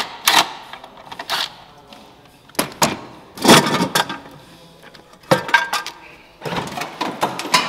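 Several short bursts of a cordless ratchet and metal parts clanking as bolts and brackets are removed from under a pickup's dashboard.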